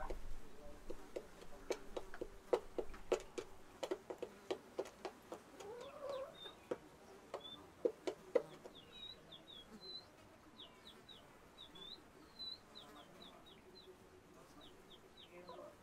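Chickens clucking in short, sharp clucks, thickest over the first half. Later a run of quick, high chirps comes in.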